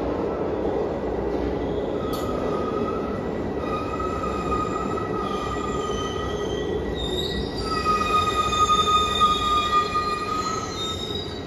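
Glasgow Subway train arriving at the platform: a steady rumble of the train running in, with its wheels squealing on the rails in several high tones from about two seconds in, loudest near the end as it draws to a stop, and a falling whine just before it halts.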